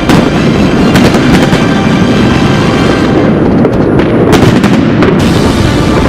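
New Year fireworks going off in a dense, continuous barrage: a steady rumble of many distant explosions with sharp bangs on top, several about a second in and a cluster between four and five seconds in.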